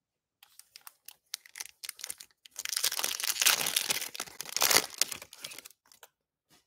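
Foil wrapper of a Panini Prizm trading-card pack being handled and torn open by hand: a few light crinkles, then from about two and a half seconds in about three seconds of dense, loud crinkling and tearing, ending in a few small ticks.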